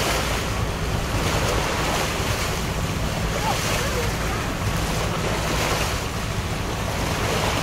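Steady wind buffeting the microphone over the wash of open sea water.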